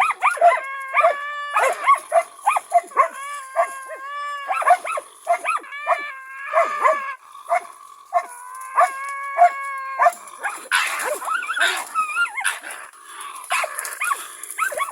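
Karelian-Finnish Laika dogs barking rapidly and excitedly at a raccoon dog, with drawn-out yelping cries between the barks: the hunting dogs baying at the cornered quarry. About ten seconds in there is a rougher, noisier stretch of snarling.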